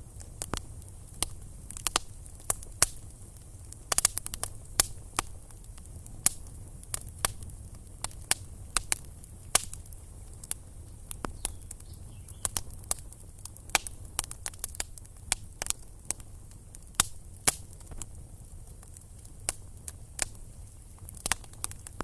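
Wood campfire crackling: irregular sharp pops and snaps from burning sticks over a low steady rumble.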